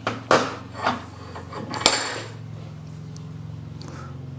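Metal clinks and clanks from a steel bench vise being wound in to press a universal joint bearing cap out of a prop shaft yoke, with sockets as press pieces. There are several clanks in the first two seconds, the loudest a sharp, ringing metallic clink about two seconds in, then a steady low hum.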